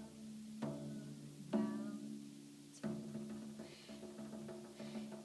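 Frame drum struck by hand in a slow rhythm: three strong strikes in the first three seconds, each leaving a low, sustained ring, then softer taps.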